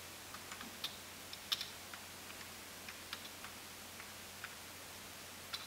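Keys being pressed on a Macintosh SE keyboard: irregular, scattered key clicks, with a louder one about a second and a half in and another near the end.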